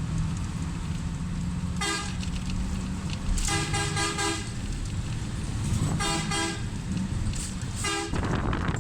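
Vehicle horn honking in short toots: one about two seconds in, a quick run of four or five at around three and a half seconds, then more near six and eight seconds. Under the toots is the steady low rumble of a running road vehicle.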